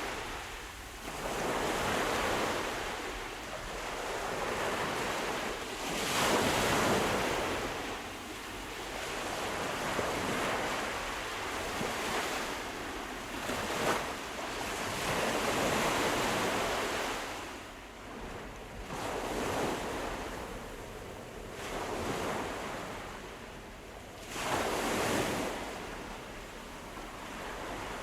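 Sea waves breaking and washing on the shore, the surf swelling and falling back every few seconds, with a louder surge about a quarter of the way in and another near the end.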